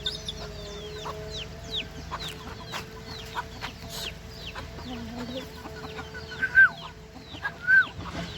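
A flock of chickens clucking, with many short, high, falling peeps all the way through and a few louder calls near the end.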